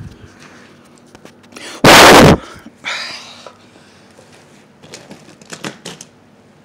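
Rummaging through boxes of papers: a very loud half-second burst of noise about two seconds in, then a softer rustle and a few faint clicks and knocks.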